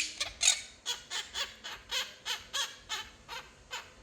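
Quaker parrot giving a rapid series of short, harsh squawks, about three a second, growing quieter toward the end.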